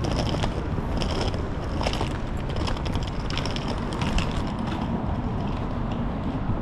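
City street ambience: a steady low rumble of traffic with regular clicking footsteps on the pavement, about one and a half steps a second.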